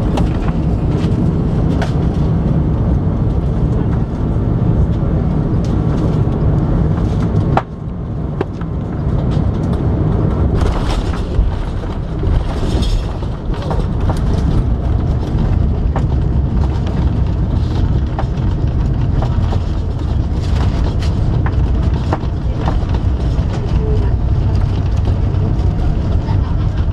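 Loud, steady low rumble of an Airbus A380 cabin on approach or landing, with scattered clicks and rattles. The sound changes abruptly about eight seconds in, and a brief higher hiss comes a few seconds later.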